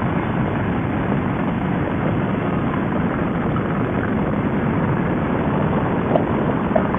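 Harley-Davidson touring bagger's V-twin running steadily at highway cruising speed, heard from the fairing-mounted camera as a constant rush of engine, wind and road noise.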